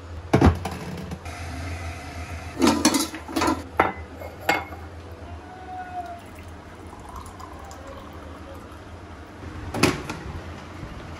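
A wall switch clicks on, ceramic mugs knock against the counter a few times, then hot water is poured from a kettle into a mug. Another sharp knock comes near the end.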